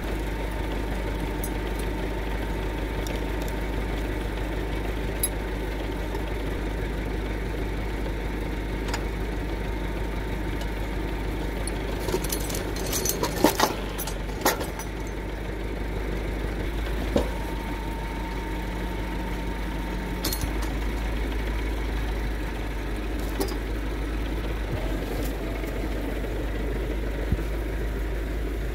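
Massey Ferguson 3070 tractor's diesel engine idling steadily at the winch. About halfway through come a few sharp metallic clinks, as of the winch chain being handled.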